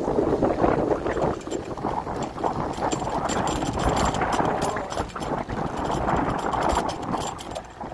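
Wind buffeting the microphone and tyre noise from a bicycle rolling along a paved road, an uneven rushing that rises and falls.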